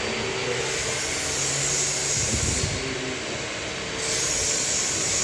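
Steady workshop machinery noise with a hiss that swells and drops away about every three seconds, and a brief low rumble about two and a half seconds in.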